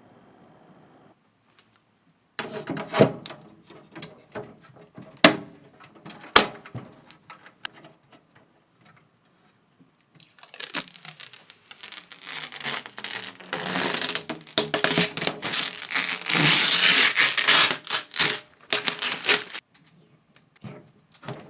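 Rustling and rubbing noise with a few sharp clicks and knocks. About halfway through it turns into a dense, loud scraping rustle that stops shortly before the end.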